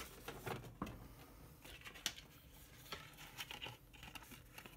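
Cardboard and a paper tag being handled: quiet rustling with scattered light clicks and taps.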